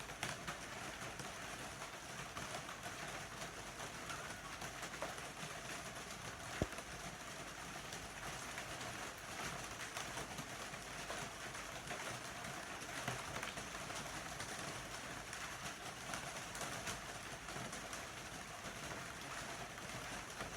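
Steady rain falling, an even hiss, with a few faint ticks and one sharp click about six and a half seconds in.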